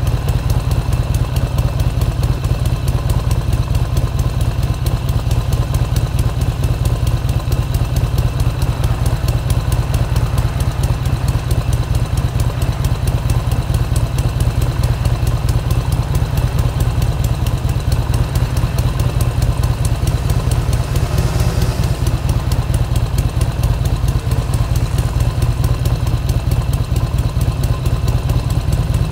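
Harley-Davidson XR1200's air-cooled V-twin engine idling at a standstill, a steady pulsing beat of exhaust.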